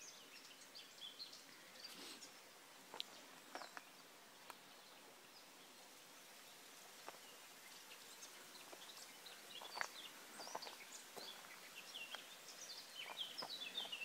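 Faint chirping of small songbirds, scattered short high calls that become busier near the end.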